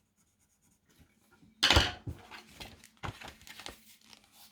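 Hard objects being handled on a tabletop: a short loud clatter about a second and a half in, then a run of lighter clicks and knocks.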